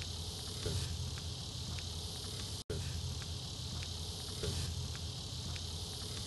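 Steady chorus of crickets and other insects in a grassy field, with a low steady hum underneath; the sound drops out for an instant a little before half-way.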